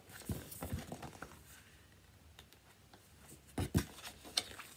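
Pages of a picture book being turned and handled: soft paper rustling with a few low knocks, the loudest a pair of thumps about three and a half seconds in.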